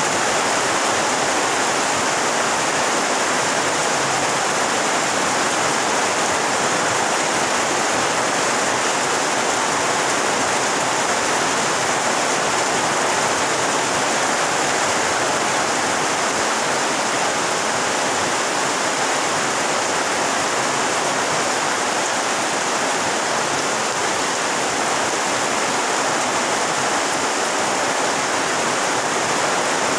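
Heavy rain falling on a pond, a steady, even hiss of countless drops on the water.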